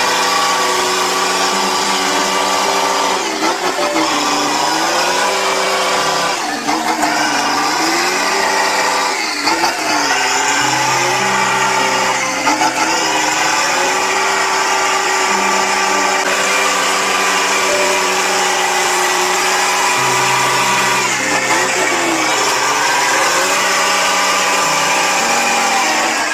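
Truck engine revving up and down under load, its pitch rising and falling in slow waves every few seconds, as the stuck truck tries to drive out of deep mud.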